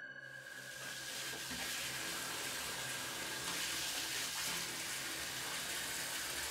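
Bathtub tap running, water pouring into the tub in a steady rush that swells in over the first second.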